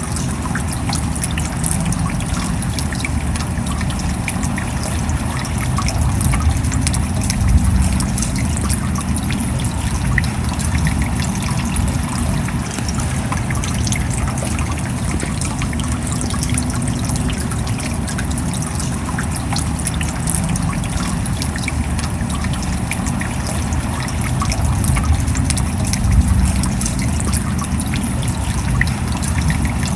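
Steady rain: a dense patter of drops over a continuous low rushing noise, swelling slightly about seven seconds in and again near the end.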